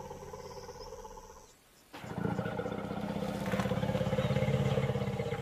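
African elephants rumbling to each other: a quieter low rumble, a short break, then a louder, pulsing rumble from about two seconds in that swells toward the end.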